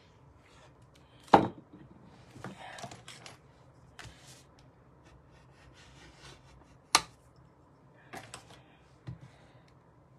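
Cardstock and papers being handled on a craft table: two sharp taps as pieces are set down, with short bursts of paper rustling and sliding between them.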